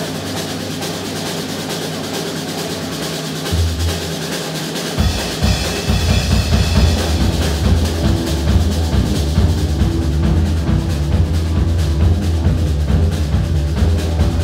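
Live rock band playing the opening of a song on drum kit, electric guitar and bass guitar, with cymbals throughout. A deep bass line comes in about five seconds in and the full band plays on.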